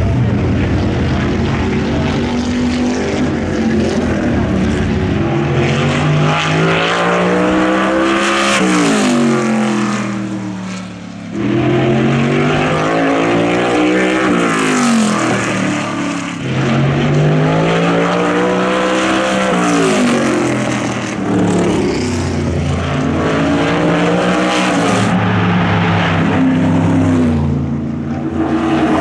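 Supermodified race cars lapping the oval, their engines climbing in pitch as they accelerate and dropping as each car passes, several times over, with a brief lull about eleven seconds in.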